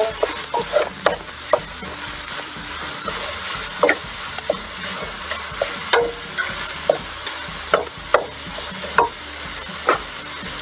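Minced meat and onions sizzling in a stainless steel pot while a wooden spoon stirs them, with irregular knocks of the spoon against the pot over a steady hiss.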